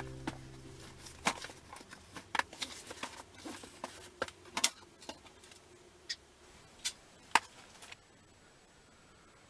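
The tail of background music fades out at the start, followed by a scattered series of light clicks and knocks, about a dozen, irregularly spaced, the sharpest a little after seven seconds, which stop about eight seconds in.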